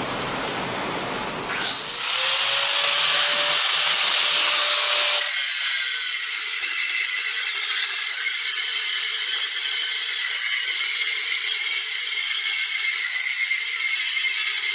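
An electric power tool spins up with a rising whine about a second and a half in, then runs steadily. About five seconds in its sound changes to a steady, rougher noise.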